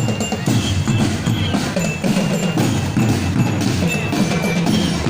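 A percussion group playing drums in a steady driving rhythm, with short high ringing notes sounding over the beat at intervals.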